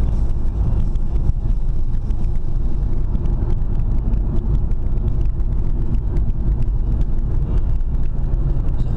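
A car driving at a steady speed, heard from inside the cabin: a steady low rumble of engine and tyre noise.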